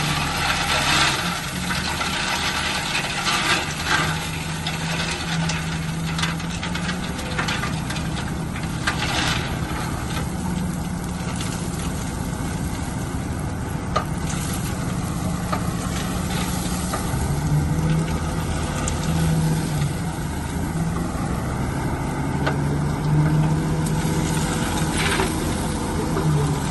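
Bulldozer's diesel engine running steadily under load, its low hum swelling and easing, with scattered short knocks and clanks.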